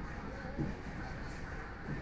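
Steady low background rumble with faint voices in it, and a single soft knock about half a second in.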